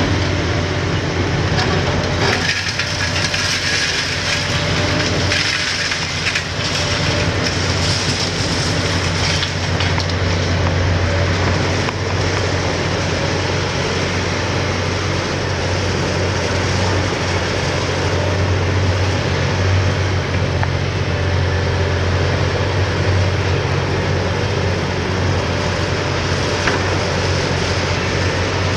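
Hitachi 870 LCR demolition excavator's six-cylinder Isuzu diesel engine working steadily under load, its hydraulics driving the crusher, with a few crunches of concrete in the first ten seconds.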